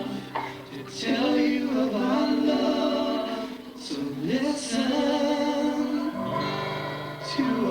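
Voices singing a church worship song in long, held notes that change pitch every second or two.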